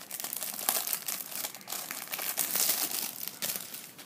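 Clear plastic packaging sleeve crinkling and rustling as a leather wallet is pulled out of it, a dense run of crackles that dies away near the end.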